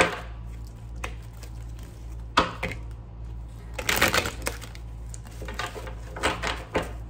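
Tarot cards being shuffled and drawn by hand: a series of irregular sharp clicks and short slaps as the cards are handled.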